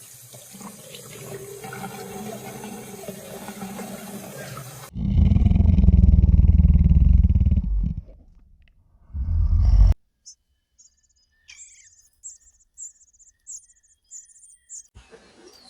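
Wild animal sounds cut one after another: rushing running water with faint squeaks, then a loud, low, deep growl or roar for about five seconds, then soft, high, short chirps repeated many times, like hungry nestlings.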